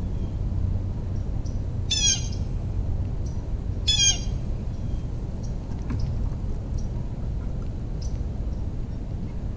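A bird squawks twice, about two seconds apart, each call short and harsh. Under them is a steady low rumble, with faint high chirps scattered through.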